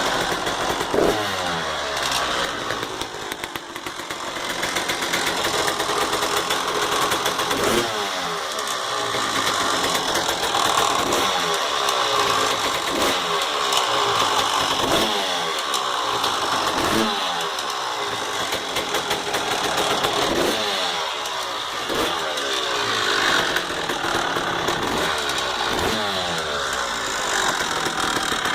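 1999 Honda CR250R two-stroke single-cylinder engine running with the throttle blipped again and again, each rev rising sharply and falling back, about every two seconds. Somewhere in the sound is a weird rattle that the owner cannot place.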